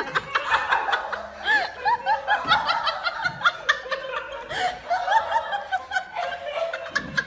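Laughter: rapid, high-pitched laughing that goes on without a break.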